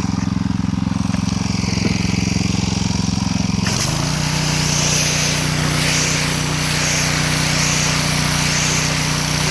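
Gas pressure washer engine running, then the spray trigger is squeezed about a third of the way in: the engine note drops slightly under load and the steady hiss of the water jet from a 45-degree wide-angle nozzle starts and holds.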